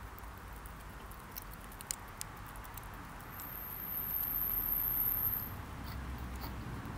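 Hedgehog moving through dry straw bedding, giving scattered light crackles and ticks of straw. A thin high whine runs for about two seconds in the middle.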